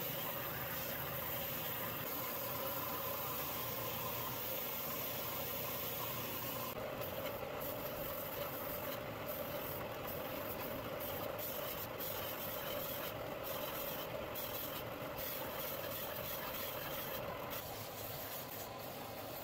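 Benchtop belt-and-disc sander running with its motor hum steady, while cedar is pressed against the moving belt to round over the edges, adding a sanding hiss. The sound drops a little near the end.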